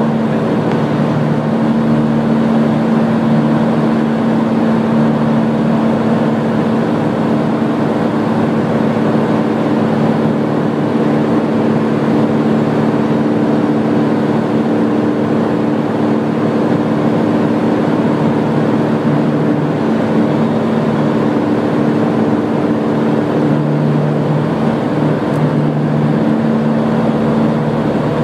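Light single-engine aircraft's engine and propeller running steadily in level flight, heard inside the cabin: a loud, even drone with a few constant pitches over a rush of air.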